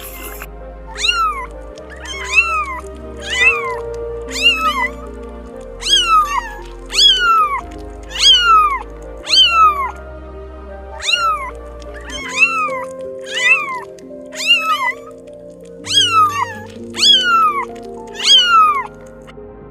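A cat meowing over and over, about one short rising-then-falling meow a second, over background music.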